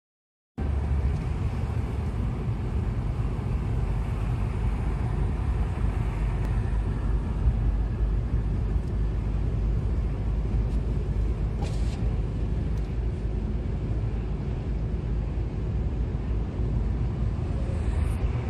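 Car driving in traffic, heard from inside the cabin: a steady low rumble of engine and road noise that starts about half a second in.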